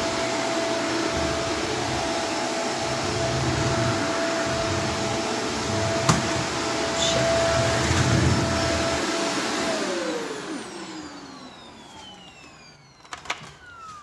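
Vacuum cleaner running steadily with a steady tone over its rushing noise, with one sharp click about six seconds in. About ten seconds in it is switched off and the motor winds down, its tone falling in pitch as it fades, followed by a few light knocks near the end.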